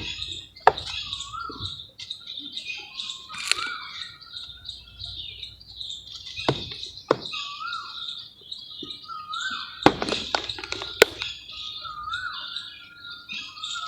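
Red mud being crumbled, heard as several sharp cracks and knocks, loudest about ten to eleven seconds in. Birds chirp and sing throughout.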